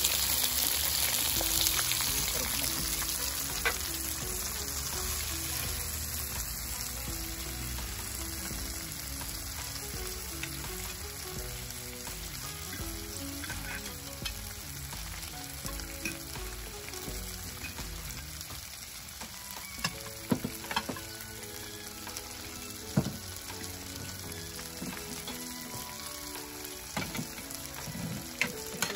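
Food sizzling on a tabletop Korean barbecue grill: a steady hiss, with a few light clicks of utensils now and then.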